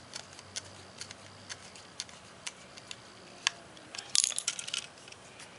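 Scattered light clicks and taps from handling a small plastic toy, with a quick run of clicks about four seconds in.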